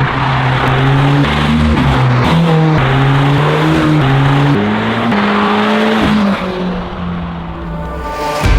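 Abarth 595 being driven: engine and tyre noise, with the engine note holding steady and then jumping up or down every second or so.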